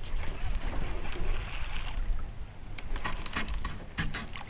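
Wind on the microphone and water lapping around a small fishing boat, a steady low rumble and hiss, with scattered light clicks from handling a baitcasting reel.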